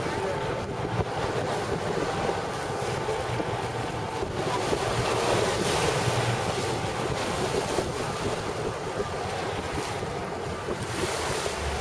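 Wind buffeting the microphone over the wash of water alongside a tour boat, with the boat's low, steady engine rumble underneath.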